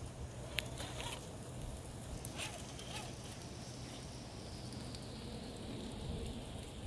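RC scale crawler creeping across a wooden plank bridge: its electric drive whines faintly, rising slowly in pitch over the second half, with a few sharp clicks as the tyres and chassis work over the planks.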